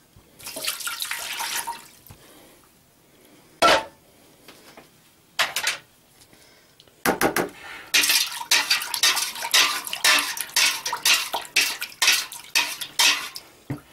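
Water poured into a stainless steel pot for about a second and a half near the start, then a few single knocks. In the second half, a metal spoon stirs quickly, clinking and scraping against the sides and bottom of the pot, to dissolve salt in the water.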